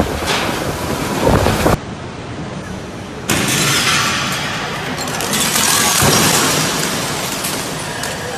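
Typhoon wind gusting hard against a phone microphone, heard as a loud, rough noise. It drops abruptly about two seconds in and comes back about a second later, as one short clip cuts to another.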